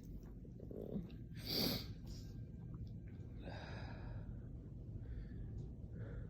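A person's allergy sneeze. There is a short catching breath, then one sharp sneeze about a second and a half in, and a heavy breathy exhale about two seconds later.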